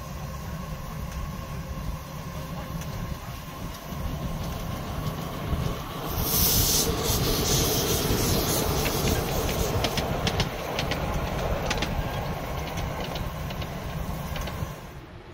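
Miniature railway train running on the track: a steady rumble with a quick run of clicking from the wheels over the rail joints. A loud burst of hissing comes about six seconds in.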